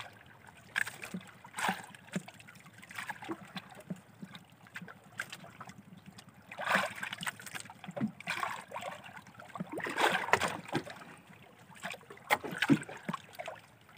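Sea water lapping and slapping against a small outrigger boat, in irregular splashes.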